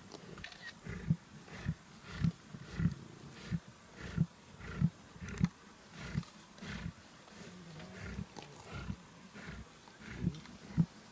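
Lions feeding on a waterbuck carcass: a steady run of short, low chewing and growling sounds, about three every two seconds.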